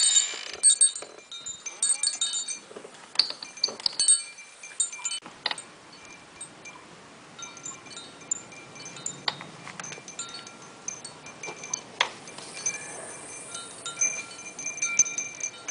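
Wind chimes ringing and clinking irregularly, knocked about by strong blizzard wind.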